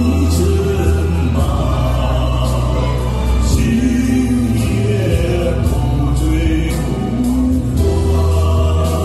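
A male voice singing a slow Mongolian-style ballad over a recorded backing track, with long held notes.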